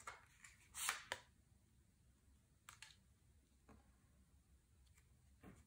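Tarot cards handled and a card laid onto a table: a few soft, brief swishes and taps, the loudest about a second in.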